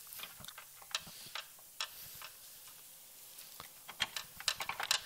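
Irregular light metallic clicks and ticks of a scooter's front axle shaft being twisted and pushed through the front wheel hub and fork, with a quicker run of clicks near the end.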